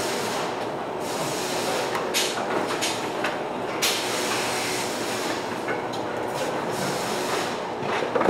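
Fish-processing and packing line machinery running: a steady mechanical din from conveyors and machines, with scattered clacks and knocks.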